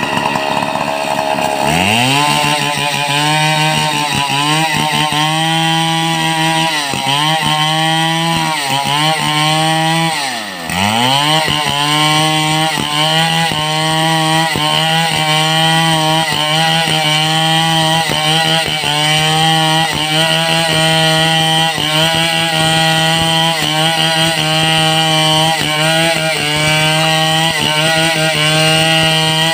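Two-stroke chainsaw running at high revs as it saws through mahogany. The engine note sags and recovers several times under load in the first ten seconds, dips deeply about ten seconds in, then holds high and fairly steady with slight wavering.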